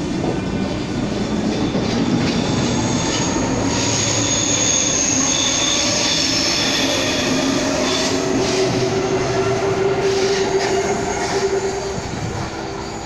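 RER B MI79/MI84 electric multiple unit running past along a platform on curved track, its wheels squealing high in the middle. A steady hum takes over later, and the sound fades near the end.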